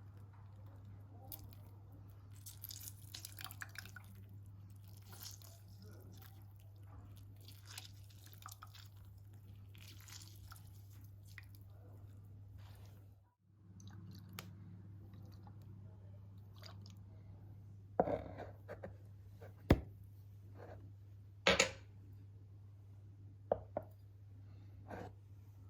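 Utensils and ingredients being handled: soft scraping and crunching over a steady low hum, a brief break about 13 seconds in, then several sharp knocks in the second half.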